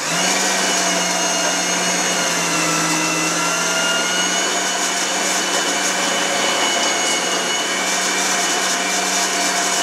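Electric kitchen machine with a meat-grinder attachment running steadily, its motor giving a constant hum with a high whine, while it grinds chunks of pork, beef and onion into mince.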